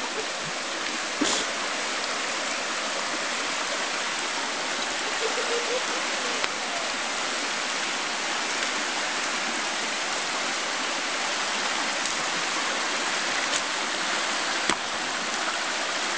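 Fast-flowing forest stream rushing steadily over rocks and logs, with a faint knock about a second in and another near the end.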